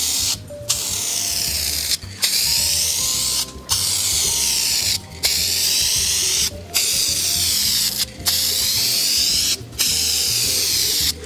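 Aerosol spray can of black high-temperature engine enamel hissing in repeated passes of about a second and a half each, with short breaks between them, laying a light coverage coat on an engine block.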